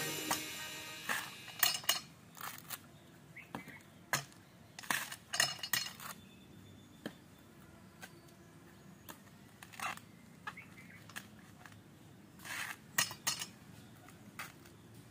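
Faint, scattered short knocks and rasping tears, in loose clusters a few seconds apart, from coconuts being husked by hand on an upright iron spike among a heap of husks. The background music fades out in the first second or so.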